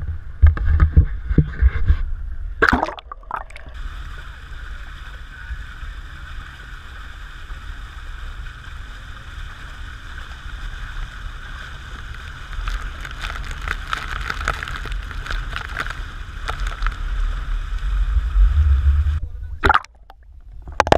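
Motorboat under way: a steady engine drone with water sloshing and gurgling close by. A few loud knocks and thumps come in the first three seconds.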